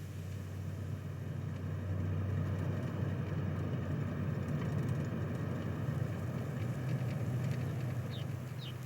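A car's engine running steadily with road noise, swelling a little in the middle. Two short high chirps come near the end.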